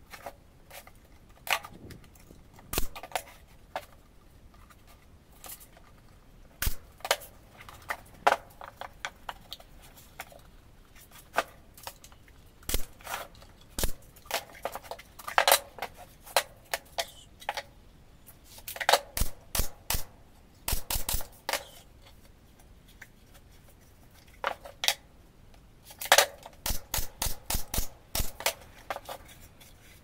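Sharp knocks and clicks from MDF speaker-box panels being handled and pinned together with a pneumatic brad nailer, coming in scattered clusters, with a quick run of about eight near the end.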